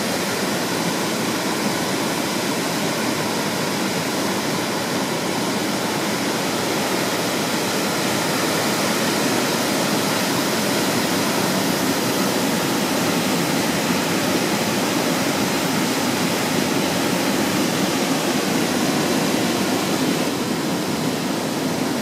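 Steady rush of flowing water, an even noise that holds level throughout.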